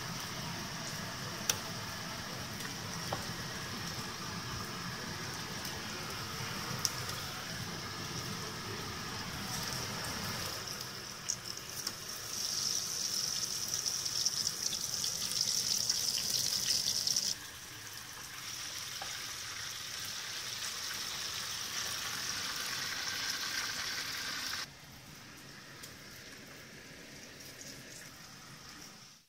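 Hot oil in a deep fryer sizzling and bubbling around breaded potato bitterballen. The level changes abruptly a few times, as if stretches were joined, and it is loudest in the middle.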